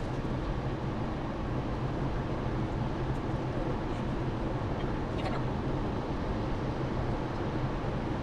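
Steady road noise of a car driving on a freeway, heard from inside the cabin: tyre and engine noise with a low hum, and a faint tick about five seconds in.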